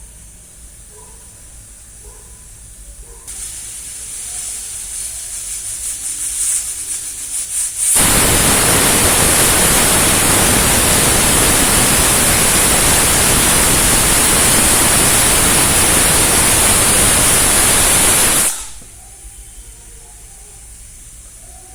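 Pressure cooker releasing steam: a faint hiss builds and sputters from about three seconds in, breaks into a loud, steady hiss about eight seconds in, and drops back to a faint hiss after about ten seconds.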